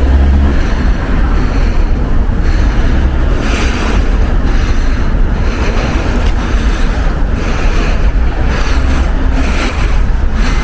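2015 Audi A4 on the move: steady road and wind noise over a low rumble.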